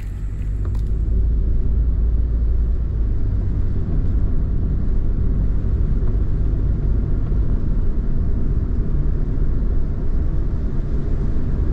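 Steady low rumble of engine and road noise inside the cab of a Honda N-VAN kei van as it drives along. It fades in over the first second or so, then holds steady.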